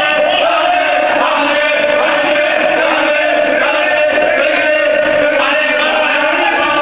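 A group of young men chanting and singing together, loud and steady.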